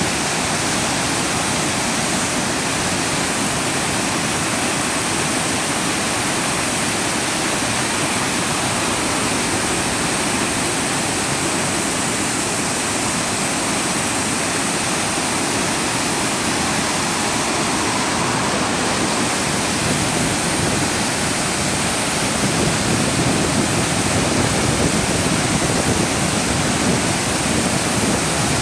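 The Falls of Dochart in flood: the River Dochart's rapids pouring over rocks in a steady, loud rush of white water.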